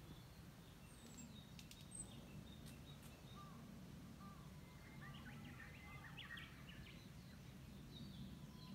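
Quiet park ambience: faint, short bird chirps, a cluster of them about halfway through, over a low steady rumble.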